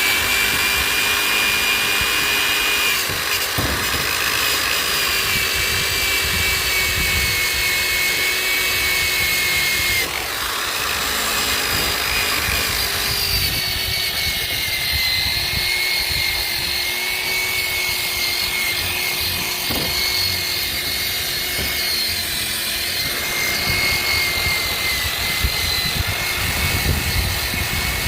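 Electric drill spinning a wire brush, scouring rust off a galvanized delta anchor: a steady motor whine over a harsh scraping rasp, its pitch sagging a little now and then.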